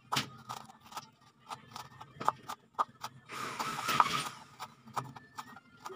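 Kitchen knife chopping red bell pepper into small pieces on a plastic cutting board: irregular sharp taps of the blade hitting the board, about three a second, with a brief noisy rustle for about a second midway.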